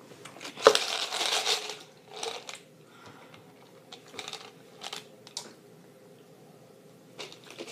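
Small plastic clicks and rattles from handling the BeanBoozled spinner toy, with a louder click and rustle about a second in and a few scattered clicks later on.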